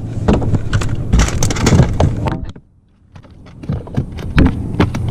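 Irregular knocks, clicks and rattles of handling on a fishing boat over a steady low rumble; a little past halfway the sound drops out almost completely for about a second, then the knocks resume.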